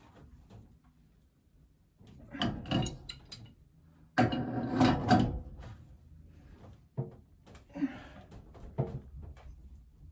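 Pipe wrenches working a threaded steam-pipe union tight: metal clicks and knocks as the jaws bite and shift, and a loud creak of metal under torque for about a second, a little past midway, followed by a few sharp clicks.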